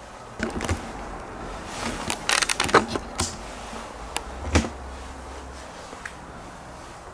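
Scattered light clicks and knocks of handling and movement, a quick cluster of them about two and a half to three seconds in and a low thump a little after four and a half seconds.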